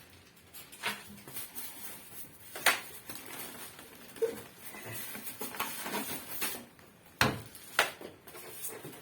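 Packaging and accessories being handled during unboxing: a few sharp knocks and clicks, the loudest about three seconds in and twice near the end, over faint rustling.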